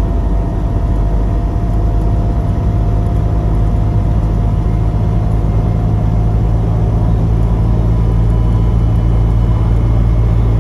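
Inside the cabin of a Lada Niva cruising in fifth gear at highway speed: a steady low drone of the four-cylinder engine and drivetrain, with tyre and road noise. There is no transfer-case whine, the transfer case having been quietened by replacing its shift levers with electric-motor actuators.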